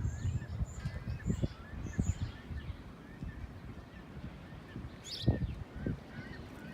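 Seagulls calling over and over in short, bending cries, with wind rumbling on the microphone and a bump about five seconds in.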